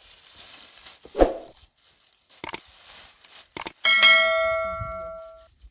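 A few handling knocks and clicks, then a metal object is struck once and rings out clearly like a small bell, fading over about a second and a half.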